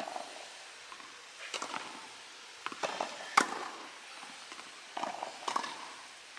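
Tennis ball being struck by rackets and bouncing on the court in a rally: a run of sharp pops at uneven intervals, the loudest about three and a half seconds in, with footsteps between.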